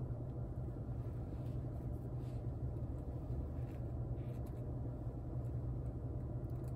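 GMC Canyon's big four-cylinder engine (2.7-litre turbo) running, heard from inside the cab as a steady low hum; this engine is rough and loud, heard all the time.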